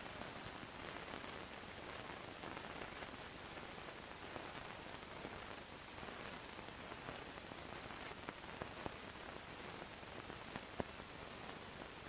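Steady hiss with a few faint clicks and pops scattered through it: surface noise from an old 16mm film print transfer, with no other sound.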